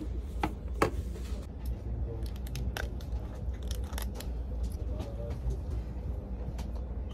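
A couple of sharp clicks in the first second as a charger plug is pushed into a train seat's power socket, then light crinkling of a paper snack wrapper being handled. Under it all runs the steady low rumble of the train.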